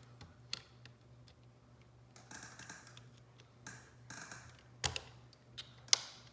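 Small screwdriver clicking and scraping against the plastic of an HP 17BII calculator while prying out its round beeper speaker disc: a few sharp clicks and two brief bouts of scraping, over a faint steady hum.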